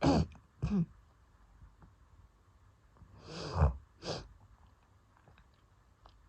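Coughing during an asthma attack: two short coughs in the first second, then after a pause a longer harsh cough that builds to a peak and one more short cough.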